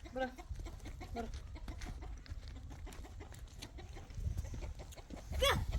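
Chickens clucking in short pitched calls, with a louder, longer call near the end.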